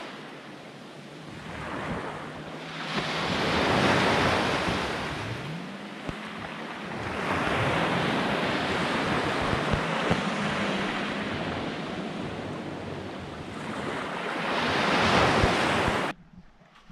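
Sea waves washing onto the shore, the rush of water rising and easing in three long surges, then cutting off suddenly near the end.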